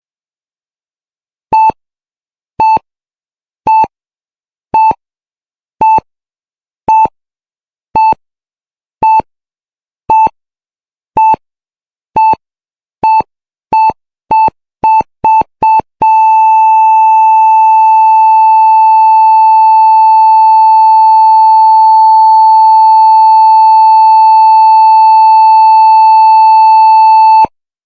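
Heart monitor beeping about once a second, the beeps quickening to a rapid run, then merging into one continuous unbroken tone for about eleven seconds that cuts off sharply: the flatline tone that marks no heartbeat.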